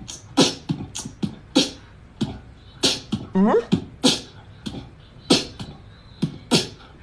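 Beatbox-style rhythm: mouth-percussion kicks and hissing snare-like hits in a steady beat, the strongest hits a little over a second apart. About halfway through there is a short pitched vocal glide.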